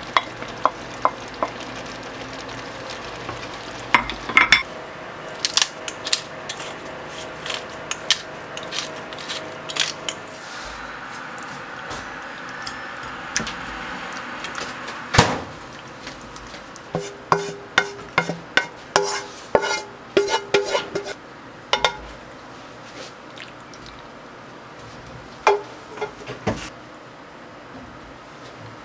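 A utensil scraping and clinking against a pan as shrimp are stirred into a creamy pasta sauce over a low sizzle, then the pasta is scooped out and knocked into a ceramic baking dish, with one loud clank about halfway through and a run of light clinks after it.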